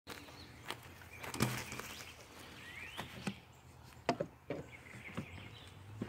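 Scattered knocks and clicks, irregular and about half a dozen of them, over a faint outdoor background in which a bird chirps now and then.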